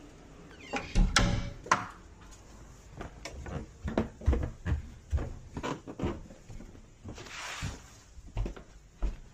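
A wooden door swinging and being shut, a cluster of knocks about a second in, followed by footsteps climbing carpeted stairs, a steady run of short thuds.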